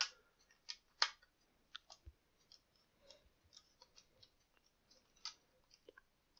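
A small screwdriver's metal bit clicking and scraping against split security screws and the plastic case of a smart home gateway as the long screws are turned out. Faint, irregular ticks, with a few sharper clicks in the first second and another about five seconds in.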